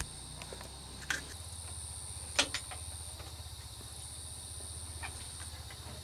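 Night insects trilling in a steady, continuous high-pitched tone, over a low steady hum. A couple of short clicks come about one second and two and a half seconds in.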